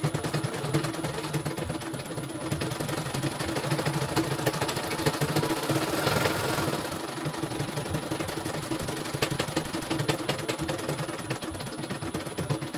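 Computerized household embroidery machine stitching a design, a steady rapid clatter of needle strokes with a steady hum from its motor.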